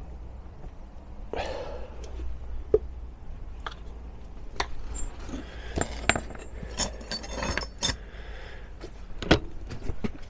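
Loose metal tools and parts being handled: scattered light knocks and clinks, with a busy stretch of metallic jangling about six to eight seconds in.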